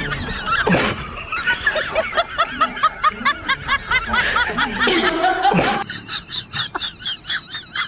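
Laughter in quick, repeated bursts over background music, changing abruptly about six seconds in.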